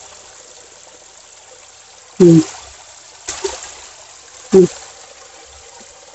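Water running and trickling steadily down wet concrete steps. A voice cuts in with three short syllables, about two, three and four and a half seconds in.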